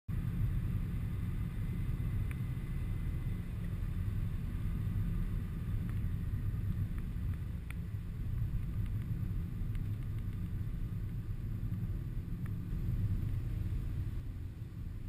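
Car driving on a paved road, heard from inside the cabin: a steady low rumble of road and engine noise, with a few faint clicks.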